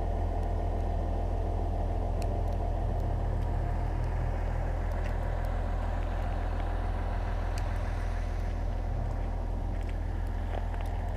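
A vehicle engine idling steadily: a deep, even rumble with faint scattered ticks over it.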